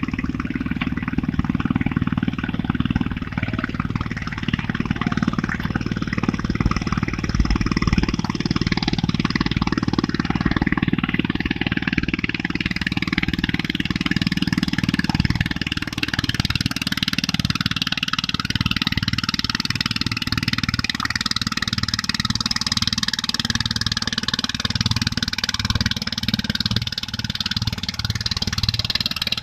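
An engine running steadily, a continuous low drone with a hiss above it.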